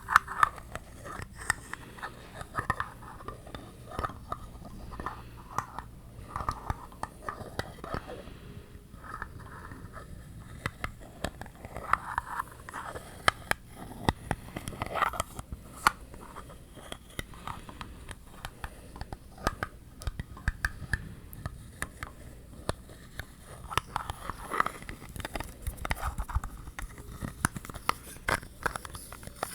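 ASMR tapping and scratching on objects: a continuous run of quick taps with short scratchy scrapes between them.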